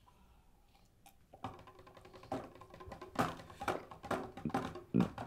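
Hand drum played with the bare hands: a loose, irregular run of taps and slaps, several a second, starting about a second and a half in.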